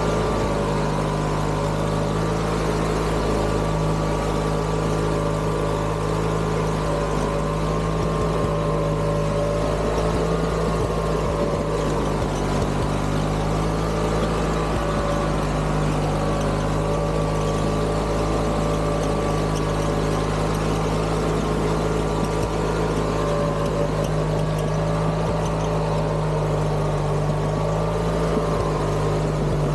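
Craftsman GT6000 garden tractor's engine running at a steady speed as the tractor crawls along slowly off-road.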